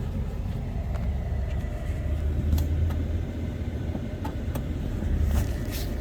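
Truck driving, heard from inside the cab: a steady low rumble of engine and road noise, with a few faint clicks.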